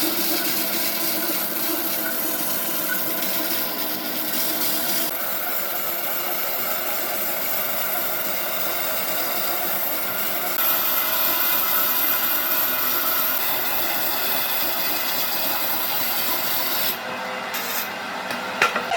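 A hand or power tool working wood, with continuous rasping and rubbing that changes abruptly about five, ten and seventeen seconds in.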